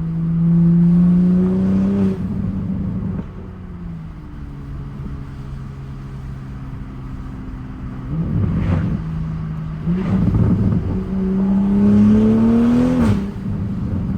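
Toyota MK5 Supra with a catless downpipe and aftermarket exhaust accelerating hard, the engine note rising, then dropping at a lift-off or shift about two seconds in. It cruises more quietly, then pulls hard again with a rising note that cuts off sharply near the end into turbo flutter.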